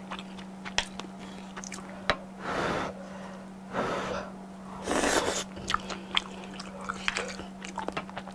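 Close-miked biting and chewing of a battered fried shrimp, its coating crunching in a run of sharp crackles, with three longer noisy bursts about two and a half, four and five seconds in. A steady low hum lies underneath.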